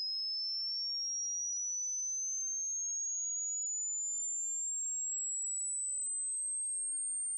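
Hearing-test tone: a single pure, very high-pitched tone gliding slowly and evenly higher in pitch at a steady level.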